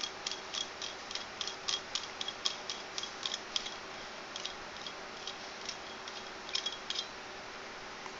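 Metal battery-tube parts of a mechanical e-cigarette mod being turned by hand on their fine threads, giving quick light ticks about four or five a second. The ticks thin out after about three and a half seconds, with a last short cluster about two-thirds through.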